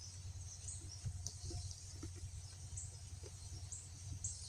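Faint, scattered high chirps of small birds over a low steady hum, with a few soft ticks.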